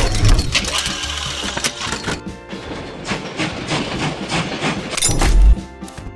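Background music with rapid mechanical clicking and rattling, and a loud low thump a little after five seconds in as locomotive buffers meet.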